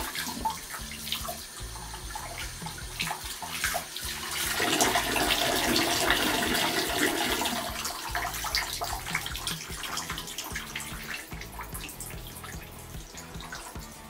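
Water running from a bathtub tap and splashing over hair and into the tub as the hair is rinsed under it. The flow sounds fuller for a few seconds in the middle.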